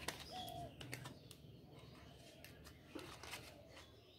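Faint handling noise of a cardboard pen box and plastic packaging: soft rustles and a few light clicks as the pens are slid out of the box.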